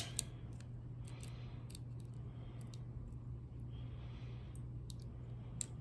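Faint, irregular small clicks of a lock pick probing the pin stacks of a Kryptonite padlock one by one while the lock sits in a false set, over a steady low hum.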